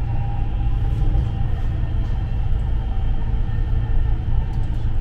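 Dubai Metro train running along the track, heard from inside the car: a steady low rumble with a faint steady whine above it.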